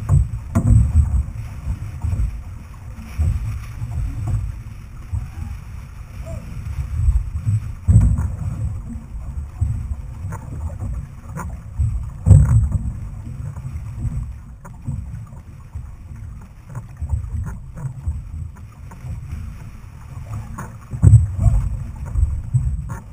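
Outrigger canoe being paddled: a steady low rumble of water and wind buffeting against the hull-mounted camera, broken by a few sharp, heavy knocks.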